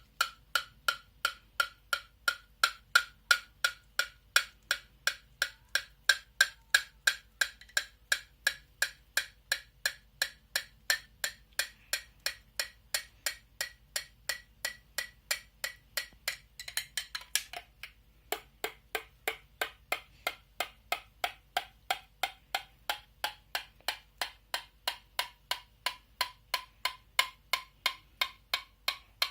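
A metal spoon tapping a cup of hot coffee about three times a second, each tap ringing with a pitch that slowly climbs. About two-thirds through, a short burst of stirring noise drops the ringing pitch sharply, and it then climbs again with the following taps. This is the hot chocolate effect: bubbles stirred into the hot drink lower the pitch, which rises as they clear.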